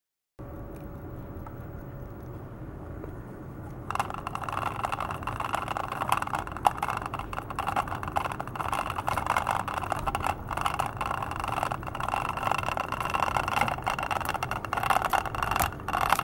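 Small electric motor of a spinning butterfly garden solar light whirring, with rattling and many light clicks from the spinning wings. A low steady hum becomes a louder, buzzier whir about four seconds in, as a cat paws at the spinning wings.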